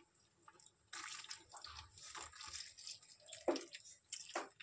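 A glass of water poured into a metal kadhai of brinjals and spices, splashing for about two seconds, then a few short drips near the end.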